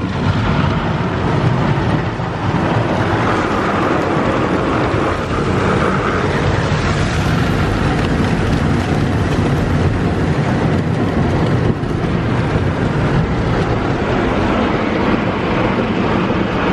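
Rotating brushes of a Wesumat soft-touch car wash scrubbing over the wet windshield and side of a car, heard from inside the cabin as a steady, loud, dense rush of noise.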